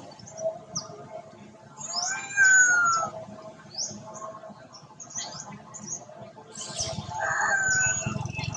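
Wild birds chirping: many short, high chirps, with two louder, longer calls of gliding pitch about two seconds in and again from about seven seconds.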